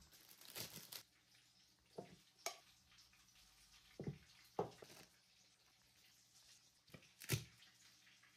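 Faint food-handling sounds on a wooden cutting board as burgers are assembled: a knife spreading chutney on buns and cheese slices being laid on the patties. About seven short, soft taps and clicks come at irregular intervals, the sharpest a little after seven seconds in.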